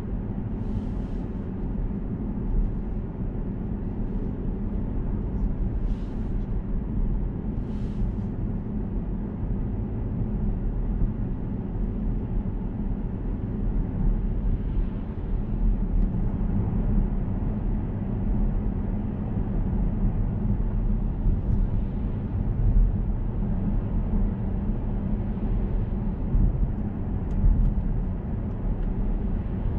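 Audi S6 C7's 4.0 TFSI twin-turbo V8 running steadily at light throttle while cruising at about 50 km/h, with the engine's low hum and road rumble heard inside the cabin. A few brief hisses come in during the first several seconds.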